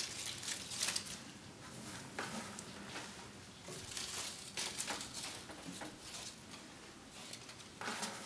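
Hand spreading and pressing down moistened long-fiber sphagnum moss over terrarium soil: soft, irregular rustling and crackling.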